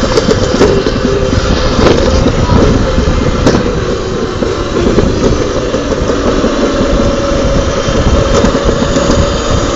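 Summer toboggan sled running down a fibreglass alpine-slide chute: a loud, continuous rolling rumble with scattered rattles and clicks.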